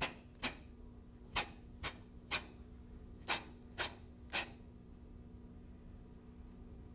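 Sharp snaps in sets of three, about half a second apart, over a faint steady hum. After the last set, about four and a half seconds in, they stop.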